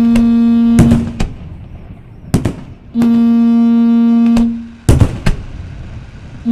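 Fireworks bursting overhead with sharp bangs, several in a few seconds. Between the bangs a loud, steady, low horn-like tone sounds twice, each time for about a second and a half.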